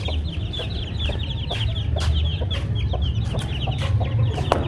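Domestic chicks peeping continuously: many short, high, falling peeps overlapping in a rapid stream, over a steady low rumble.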